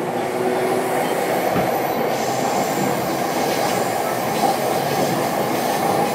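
Steady running noise heard from inside the motor car of an E233-series electric train: wheels rolling on the rails and the traction equipment. A faint steady hum fades out in the first second.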